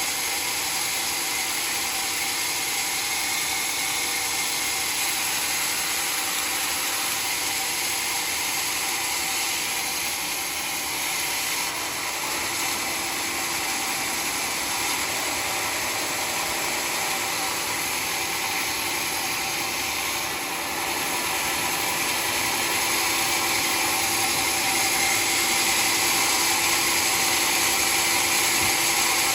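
Sawmill running steadily, a constant high machine noise with a faint steady hum, getting slightly louder about two-thirds of the way through.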